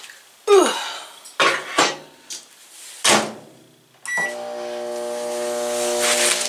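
A few sharp knocks and clatters, then a short keypad beep about four seconds in as an Emerson microwave oven is started, followed by the steady hum of the microwave running.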